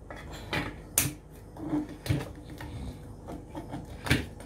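Scissors snipping through the plastic ties binding a frozen mud crab: several sharp snips over light rustling, the loudest about a second in and near the end.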